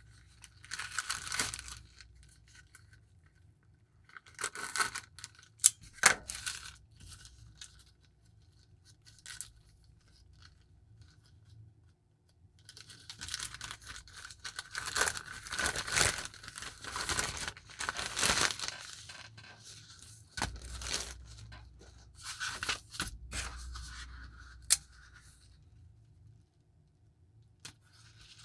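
Plastic outer bag and padded paper mailer being cut with a small folding knife and torn open by hand: irregular bouts of tearing and crinkling, busiest midway, with a few sharp clicks.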